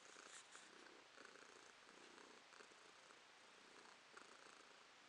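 Domestic cat purring faintly while being scratched under the chin, with a few light clicks of fur and hand close to the microphone.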